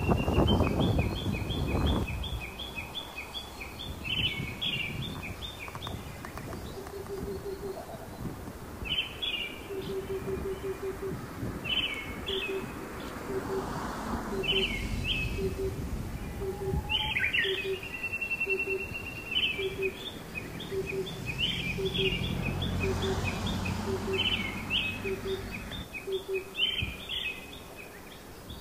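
Birds singing and chirping, with short high calls and trills repeating throughout. A low, short note repeats about once a second from a few seconds in, and a low rumble passes a little after the middle.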